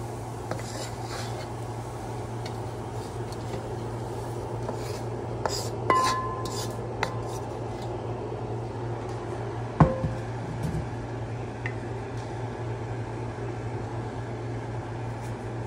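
Kitchenware clinking and scraping as fried raisins are tipped from a wok into a glass bowl with a wooden spoon, with a ringing knock about six seconds in and a sharper, louder one near ten seconds. A steady low hum runs underneath.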